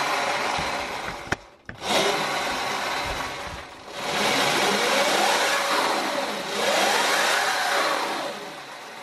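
Sur Ron Light Bee electric motor spinning the rear wheel on a stand as the throttle is twisted. Its whine rises and falls in pitch several times and briefly drops away about a second and a half in. The newly calibrated Domino throttle is working with the KO controller.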